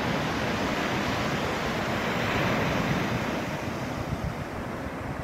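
Sea waves breaking on a beach: a steady rush of surf that swells a little in the middle and eases slightly toward the end.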